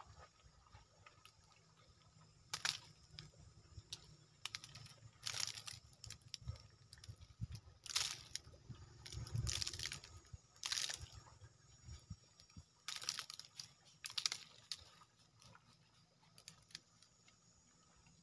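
Irregular crackling and rustling clicks, about a dozen of them bunched in the middle of the stretch, over a faint low rumble.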